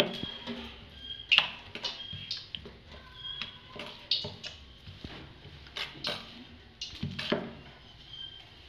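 Wooden rolling pin rolling out a round of soft nanpuri dough on a hard flat surface, with irregular sharp knocks and clicks as the pin rolls, lifts and comes down again; the loudest knock comes about a second and a half in.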